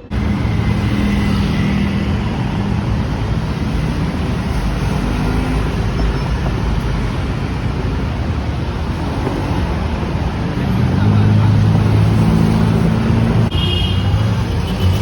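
Road traffic: vehicles running past with a steady engine hum under a wash of road noise, the engine sound getting louder about two-thirds of the way through.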